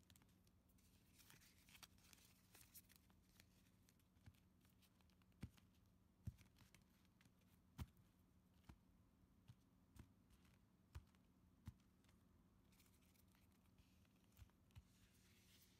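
Faint rustling of a deck of cards being gathered and handled, with about a dozen light, sharp clicks and taps through the middle, over a low hum.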